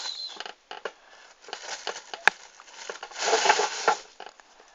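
Handling noise of small objects being picked up and moved about: scattered light clicks and taps, one sharp click about two seconds in, and a louder rustle about three seconds in.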